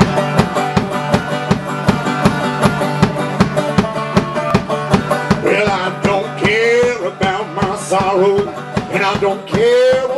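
Banjo played live in a steady, driving rhythm. A man's voice comes in about halfway, singing long held notes over it.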